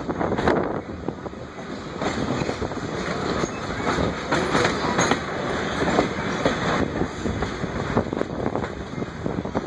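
Passenger coach rolling along the track, its wheels rumbling and clattering on the rails, with irregular clicks over rail joints, heard through an open coach window.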